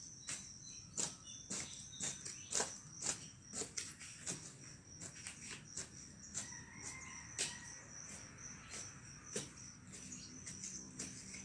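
A short-handled hand tool striking and scraping into loose soil as a garden bed is tilled, in irregular strokes about two a second at first and sparser after the middle. Insects keep up a steady high chirring underneath.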